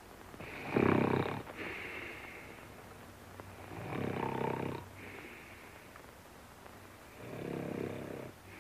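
A man snoring loudly with his mouth open: three heavy snores about three seconds apart, each followed by a softer, higher-pitched breath out.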